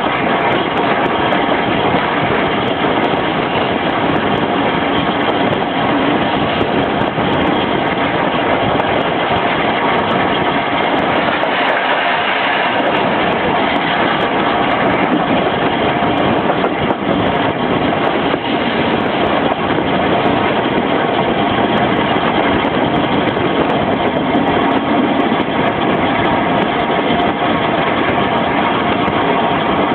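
Steam-hauled passenger train running along the line, heard from aboard: a steady rumble of the carriage wheels on the rails.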